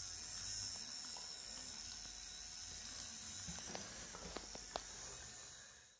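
Small toy DC motors of a belt-driven line-follower robot whirring faintly as a steady high buzz, with a few light clicks about three and a half to five seconds in. The sound fades out near the end.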